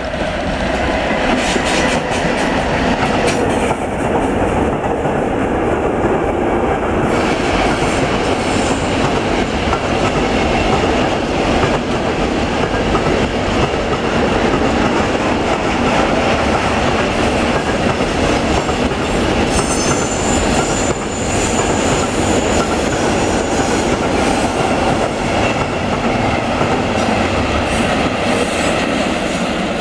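Long freight train of tank wagons rolling past close by, hauled by a BR 185 electric locomotive: a loud, steady rumble of steel wheels on rail with clicks over the rail joints.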